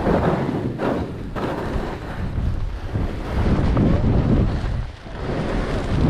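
Wind buffeting a GoPro microphone while skiing, mixed with the hiss and scrape of skis sliding over snow. The noise surges and eases throughout and drops off briefly about five seconds in.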